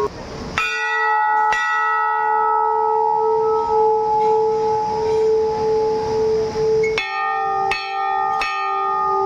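Hanging brass temple bells struck by hand: two strokes about a second apart that ring on for several seconds, then a lower-pitched bell struck three times in quick succession near the end.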